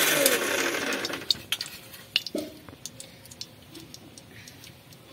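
A loud whirring noise cuts off about a second in. After it come faint, scattered crackles and clicks: leftover oil spitting in the hot, emptied aluminium kadai.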